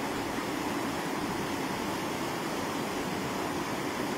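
Fast-flowing floodwater rushing through a street, a steady, unbroken rush of water.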